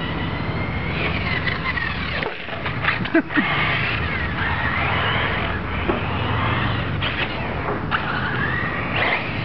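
Off-road RC car motors whining as the cars race around the track, their pitch rising and falling with throttle. A short clatter about three seconds in.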